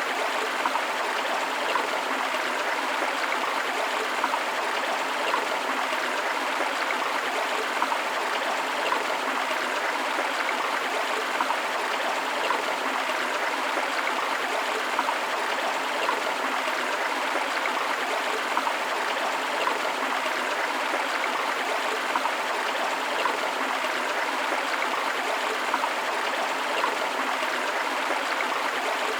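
A forest river running steadily over rocks, an even rushing with small splashes and gurgles throughout.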